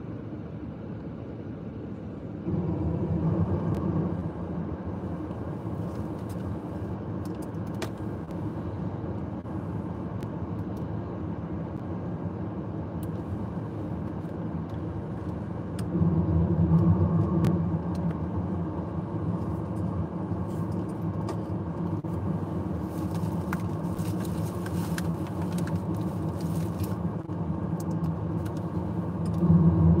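Steady rumble of a car heard from inside its cabin, growing louder for a few seconds about two and a half seconds in, again about halfway through, and near the end.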